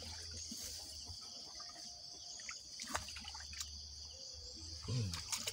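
Steady high-pitched insect chirring, with a few faint clicks and rustles of grass and a fish trap being handled, two sharp clicks about halfway through.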